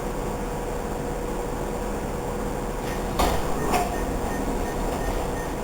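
Steady hum inside a Budd subway car with a faint constant tone, broken a little past three seconds in by two knocks about half a second apart.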